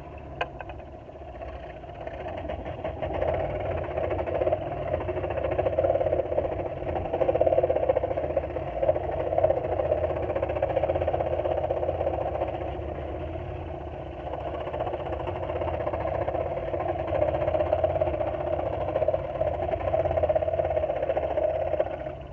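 Porter Cable scroll saw running and cutting sheet wood: a steady motor hum with the blade's fast reciprocating chatter. It swells and eases as the workpiece is fed through the blade, and drops off near the end.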